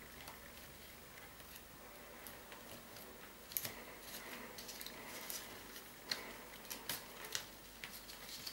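Rolled paper tubes rustling and giving light, irregular clicks as a tube is threaded through the woven wall of a paper basket. The clicks come mostly in the second half.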